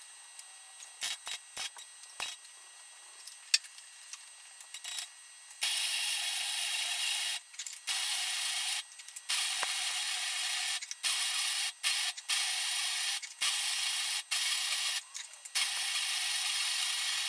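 Wire-feed (MIG) welder arc crackling as a cut-down steel wheel rim is welded back together. First come a few clicks and very short arc strikes, then from about six seconds in a run of welds, each lasting one to two seconds with short breaks between them.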